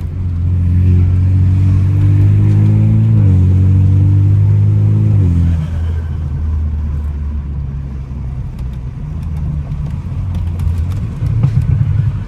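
Car engine accelerating through the gears, its pitch climbing and dropping twice at the upshifts about 3 and 5 seconds in. It then eases off into a quieter, rougher cruise, and picks up again near the end.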